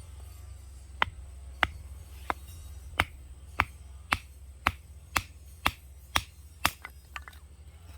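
About a dozen sharp clicks, evenly spaced at roughly two a second, starting about a second in and ending near the end with a few fainter, quicker ones, over a steady low hum.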